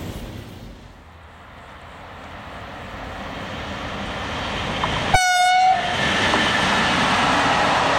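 Rail running noise of a freight train that grows steadily louder as an electric locomotive hauling tank wagons approaches. About five seconds in the locomotive gives one short horn blast, then the train's rolling noise stays steady.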